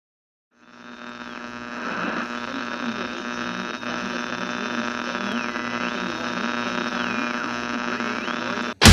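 Industrial noise intro to a metal track: a steady electrical-sounding hum fades in, with high tones that repeatedly slide down and back up over it, then cuts off abruptly.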